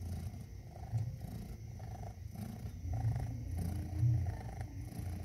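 A Persian mother cat purring while nursing her newborn kittens: a low, steady purr that swells and fades in regular breathing cycles.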